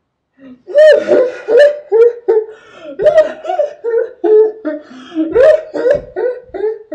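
A girl laughing loudly in quick repeated bursts, starting about half a second in.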